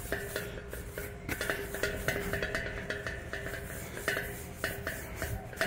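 Oil crackling and sizzling on a smoking-hot carbon-steel discada as a paper towel wipes it across the pan, with a steady hum underneath: the oil seasoning coat going on.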